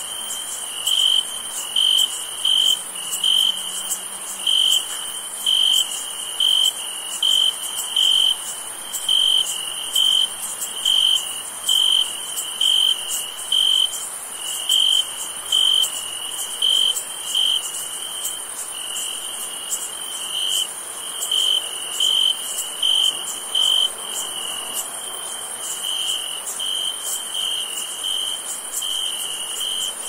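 Crickets chirping on a summer night: one near cricket gives short, even, high chirps about once a second over a steady high-pitched trill of many insects.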